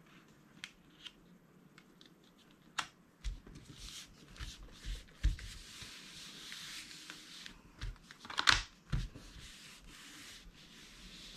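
Card stock being pressed and rubbed flat by hand on a cutting mat to bond it onto adhesive foam squares: paper rustling and sliding, with a few light ticks at first, soft thumps, and a sharp paper crackle about eight and a half seconds in.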